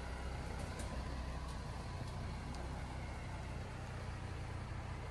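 Jeep Gladiator Rubicon's engine running steadily, a low even hum.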